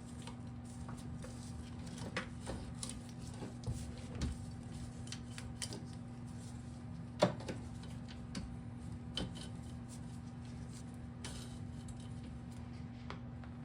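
Hand work on a small dirt bike during teardown: scattered small clicks, taps and rattles of tools and metal parts being handled, with one sharper knock about seven seconds in. A steady low hum runs underneath.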